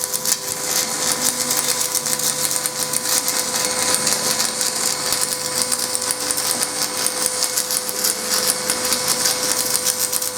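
Arc of a stick welding rod burning on preheated aluminum plate: a steady, loud crackle and sizzle with a constant thin electrical whine under it.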